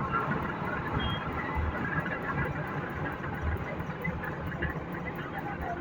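Heavy diesel earthmoving machinery at work, a large excavator loading a dump truck, running steadily with low thumps at irregular intervals.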